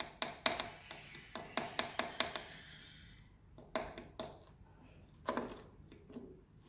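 A spoon tapping against the mouth of a plastic water bottle, about four quick taps a second for two seconds, then a few scattered taps: powder being knocked off the spoon into the bottle.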